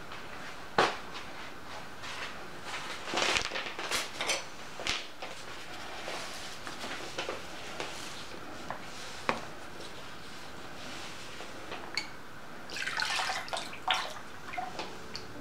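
Scattered clinks and knocks of glassware and utensils being handled on a table, then lye solution poured from a glass measuring cup into a plastic bowl of oils near the end.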